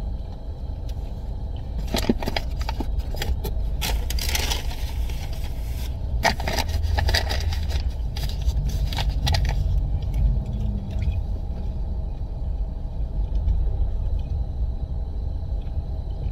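Steady low rumble inside a car, with a food wrapper and paper bag crinkling and rustling in bursts during the first ten seconds or so, densest about four seconds in.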